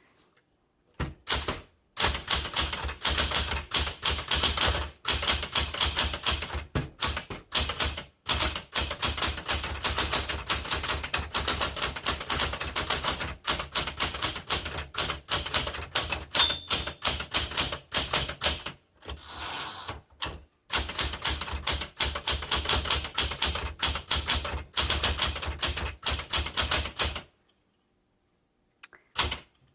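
1977 Smith Corona Classic 12 manual typewriter being typed on quickly: a long, fast run of key strikes broken by a few short pauses, stopping a couple of seconds before the end.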